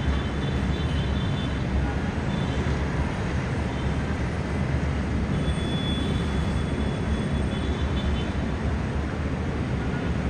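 Steady wash of heavy city traffic heard from high above a busy multi-lane road, with faint high squeals now and then.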